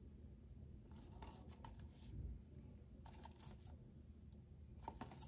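Faint scraping and rustling of a cardboard slipcover on a Blu-ray case handled and turned over in the hands. It comes in three short bouts, about a second in, about three seconds in and near the end, over a low steady hum.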